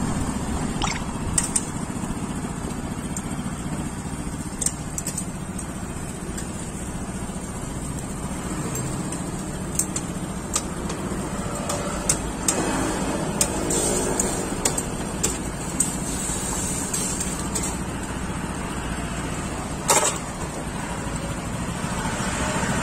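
Steady street traffic noise, with scattered sharp clicks and taps of cooking utensils on the stall's metal trays and griddle, the loudest about 20 seconds in.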